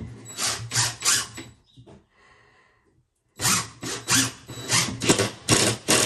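Cordless impact driver hammering a screw through a timber batten into the ceiling, in short pulses about three a second. It stops for a second and a half at about the two-second mark, then drives again.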